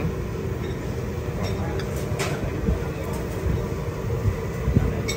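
Steady background din: a low rumble with indistinct voices and a few short clicks or clinks.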